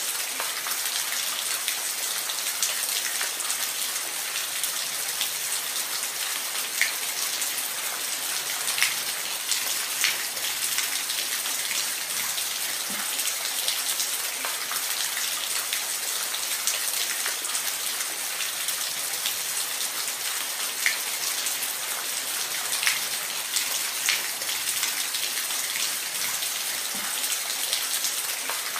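Steady rain falling: an even hiss with scattered louder drips.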